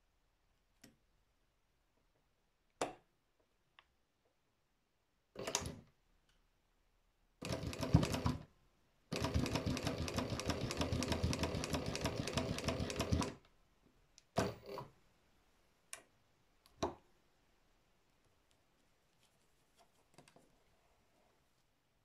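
Embroidery sewing machine stitching in short bursts, with one longer run of rapid stitching of about four seconds in the middle. A few single clicks come before and after.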